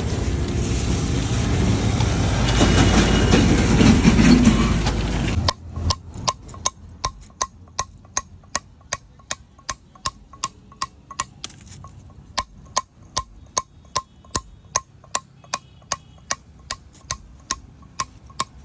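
Hands rubbing fresh leaves hard over a sandstone slab, a loud, steady scraping rustle. About five seconds in it gives way to a hammer tapping a steel chisel along a marked line on the stone, about three sharp, ringing taps a second.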